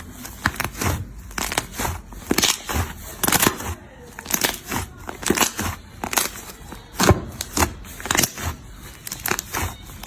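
Slime being pressed and squeezed by hand, giving a quick, irregular run of sharp pops and crackles.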